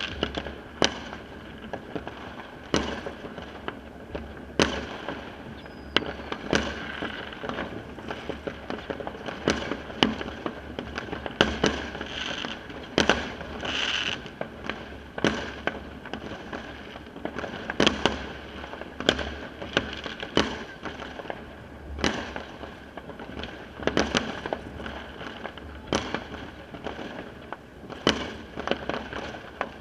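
Fireworks going off all around: sharp, irregular bangs about every second, over a constant distant crackle. A brief hissing burst comes about 13 seconds in.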